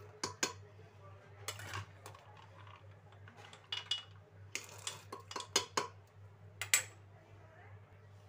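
Metal utensils clinking and knocking against a cooking pot while soaked chana dal is added to milk: a dozen or so short, irregular clinks, the loudest near the end, over a low steady hum.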